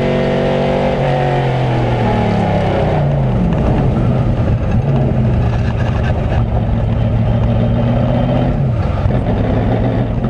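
Race car engine heard from inside the cockpit, running hard; its pitch falls about a second in and again around three seconds in, then holds steady, with a brief dip and recovery near the end.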